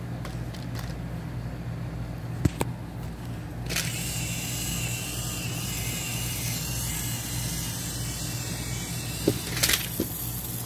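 Battery-powered toy train motors whirring: a steady low hum, joined about four seconds in by a higher whine, with a few sharp clicks.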